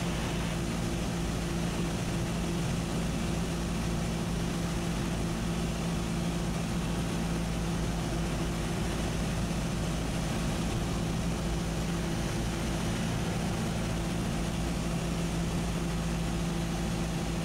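Cessna 172SP's four-cylinder Lycoming engine and propeller droning steadily inside the cabin, throttled back for the landing approach with flaps extended.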